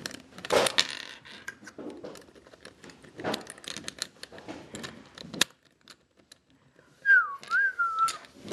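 Plastic Rubik's cube pieces clicking and clattering as they are handled and fitted in, with a sharp click about five and a half seconds in. Near the end, a short whistle of about a second that dips, rises and levels off.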